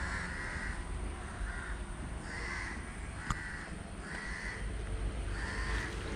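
A bird calling over and over, about one call a second, with one sharp click a little past the middle.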